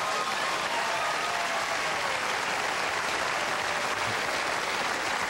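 Studio audience applauding steadily after a joke's punchline.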